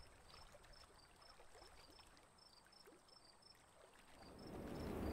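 Faint evening lakeside ambience: short high chirps repeat a few times a second over a quiet background. A soft rushing swell rises from about four seconds in.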